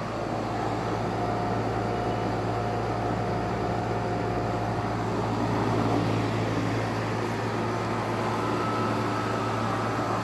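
2008 NuTone (Nordyne) 2.5-ton central air conditioner condensing unit running steadily: the Copeland scroll compressor hums under the rush of the condenser fan, a nice scroll sound. A faint higher whine sits over it for the first few seconds.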